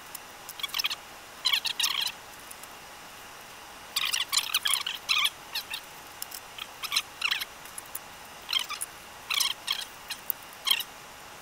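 Atari 1050 disk drive's eject mechanism being worked by hand, giving irregular bursts of short, high-pitched clicks and squeaks. Its metal catch has been sticking in its plastic guide and has just been oiled with sewing machine oil.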